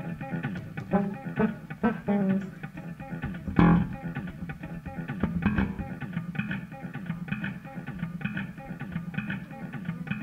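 Electric bass played solo through an amplifier: a run of low notes mixed with higher chords, with one sharp, loud accent about three and a half seconds in.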